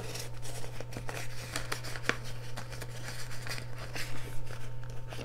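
Paper banknotes rustling and crinkling in irregular bursts as they are handled and slid into a clear plastic binder pocket, over a steady low hum.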